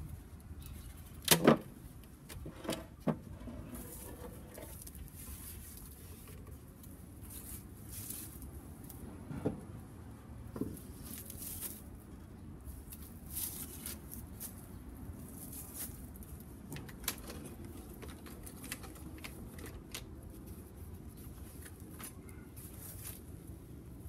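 Knocks and bumps of wooden beehive parts being handled. There is a loud double knock about a second in, a few lighter knocks scattered after it, and a faint steady background between them.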